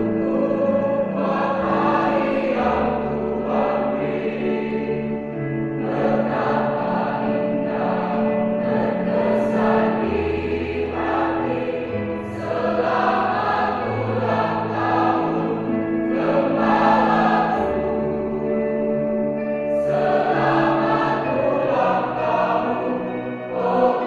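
Large mixed choir singing in phrases a few seconds long, with long-held low notes beneath the upper voices.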